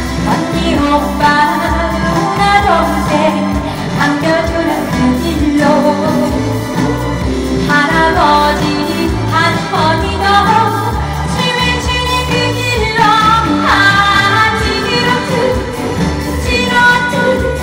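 A woman singing a Korean trot song into a handheld microphone over backing music with a steady beat.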